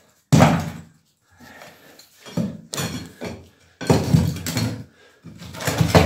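Steel crowbar prying and scraping at fire-brick lining in an old fireplace, with a series of sharp knocks as chunks of brick break away and drop onto the hearth.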